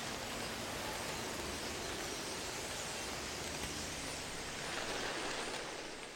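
A large flock of common starlings at roost in pine trees, their massed chatter blending into a dense, steady wash of sound that fades out near the end.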